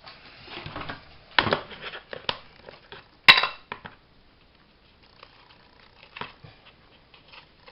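Light taps and knocks of craft tools and paper handled on a tabletop while ink is sponged onto the edges of a paper cut-out, with one sharp click a little over three seconds in.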